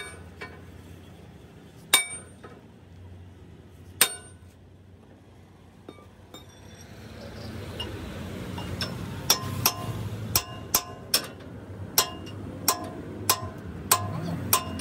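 Hammer blows on a steel drift held against a heavy truck's front axle: three heavy, ringing strikes about two seconds apart, then from about nine seconds a quicker run of lighter ringing strikes, roughly two a second. A low rumble rises underneath from about seven seconds.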